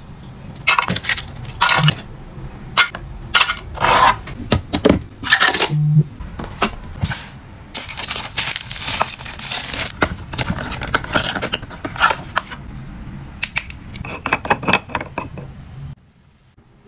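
Hands handling skincare packaging: plastic and paper sachets and a cardboard product box crinkling, clicking and tapping on a tabletop, with a longer stretch of plastic wrapping crinkling and tearing in the middle.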